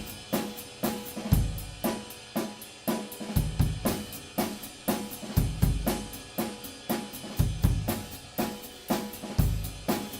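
Acoustic drum kit played solo in a steady, driving pattern: snare, hi-hat and cymbal strikes several times a second, with bass-drum hits coming in bursts about every two seconds.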